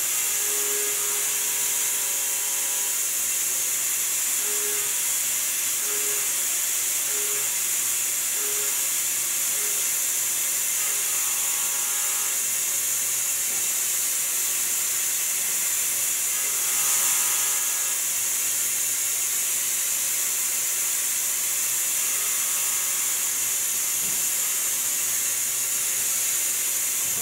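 Tormach CNC mill 3D-surfacing an aluminium part with a small ball end mill: a steady cutting and spindle sound under a constant hiss of compressed air blowing on the cut.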